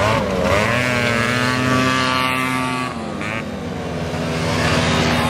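Several 50cc scooter engines revving as the scooters pull away, their pitch climbing, dipping briefly about three seconds in, then rising again.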